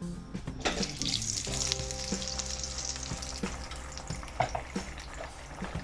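Neyyappam batter of rice and jaggery deep-frying in hot coconut oil. The sizzle starts sharply just under a second in, then settles into a steady hiss with scattered crackles.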